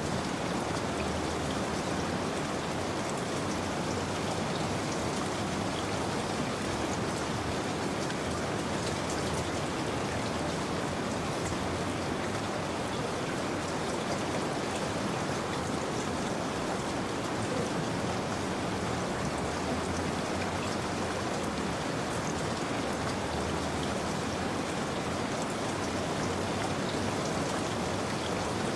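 Steady rainfall, with drops pattering on a surface, used as a continuous ambient sleep track.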